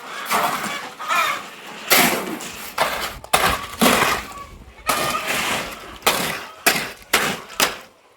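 Shovels scraping and turning a wet sand-and-cement concrete mix by hand, in irregular gritty strokes about once a second.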